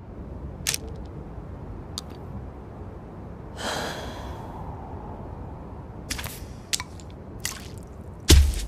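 A person breathing out one long breath through the mouth, just past halfway, over a steady low rumble with a few sharp clicks. Near the end comes a loud, heavy thump, the loudest sound here.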